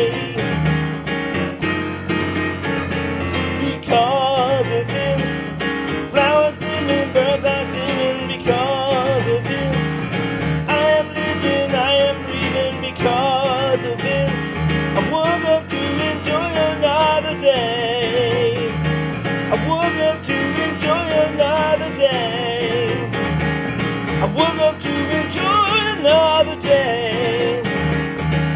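Music from a country-gospel song, with guitar and keyboard over a steady bass and a wavering lead melody line on top, without the sung lyrics.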